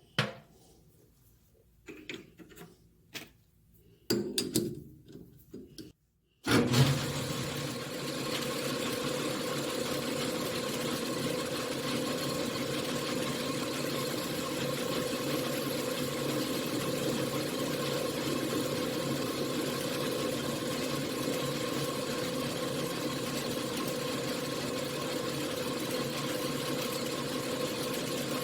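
A few sharp clicks and knocks of metal parts being handled on a lathe, then, after a short break, a 1953 Logan engine lathe starting up and running steadily with a constant hum.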